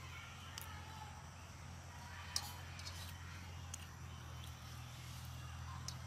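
Faint clicks and soft rustling of fingers tearing paratha and scooping chicken curry on a steel plate, the sharpest click about two and a half seconds in, over a low steady hum.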